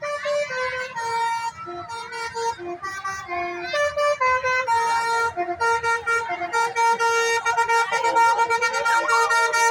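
Bus 'telolet' musical air horn, a set of tuned horns playing a tune: a run of short and held notes stepping between fixed pitches, over and over.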